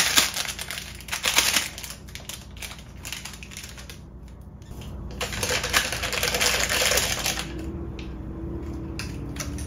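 Foil-and-plastic instant-noodle seasoning packets crinkling and rustling as they are torn open and shaken out over a cup of ramen. The crackle comes in two busy spells, one at the start and another from about five seconds in, with scattered small crinkles between them.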